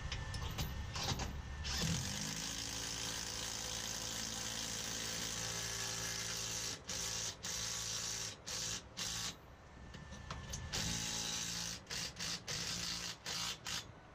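Cordless driver driving a long screw through a steel Z-clip into the wall. The motor runs steadily for about five seconds, then stops and starts in short trigger bursts as the screw seats, with one more steady run near the end.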